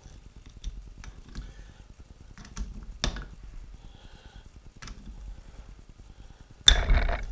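Metal tools clicking and knocking against a steel lathe chuck as its bolts are worked loose: scattered light clicks, a sharper knock about three seconds in, and a loud, short rasping burst with a ringing note near the end.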